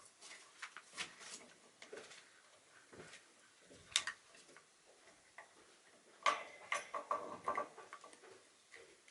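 A Shiba Inu gnawing on a horse hoof: irregular clicks and scrapes of teeth on the hard hoof, with one sharp click about four seconds in and a busy run of clicks from about six to eight seconds in.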